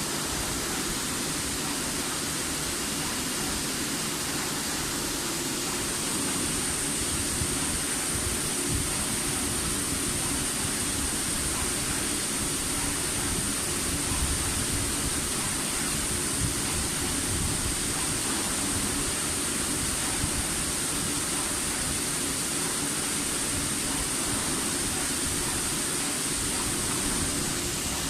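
Aoke sample-cutting machine running with a steady hiss, a thin high whine joining about six seconds in and stopping near the end.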